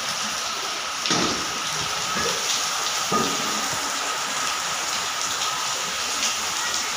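Heavy rain falling on a wet concrete rooftop: a steady hiss with scattered drop impacts. A couple of dull thumps about one and three seconds in.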